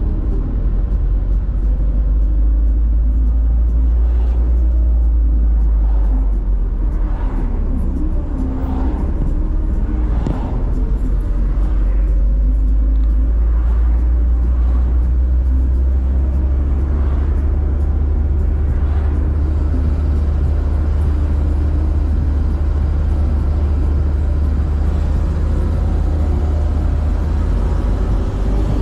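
Steady low rumble of a vehicle travelling on the road, with several brief whooshes of passing traffic in the first two-thirds.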